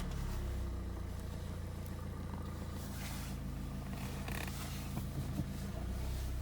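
Skoda Octavia 2.0 TDI four-cylinder diesel engine idling steadily, just after being started.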